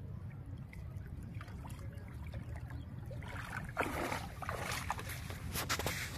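Shallow water splashing and dripping as a wet cast net is hauled up out of it and the wader's feet move through the water, in irregular bursts from about three seconds in. A low steady rumble runs underneath.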